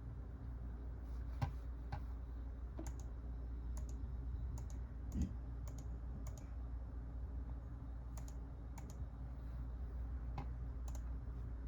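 Scattered clicks from handling a Sony WM-EX633 Walkman cassette player, about a dozen short, sharp clicks at irregular intervals, over a steady low hum.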